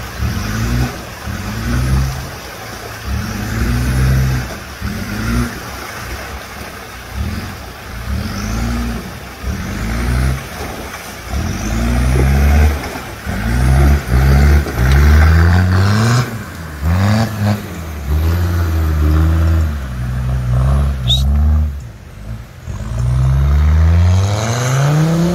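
Off-road 4x4 engine revved in repeated short bursts, its pitch rising with each blip, then a longer rising rev near the end.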